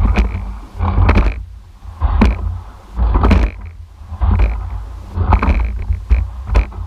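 Rowing eight under way: sharp clunks of oars turning in the oarlocks and the rigger taking the load, about once a second in time with the strokes, over a rush of water and a low rumble.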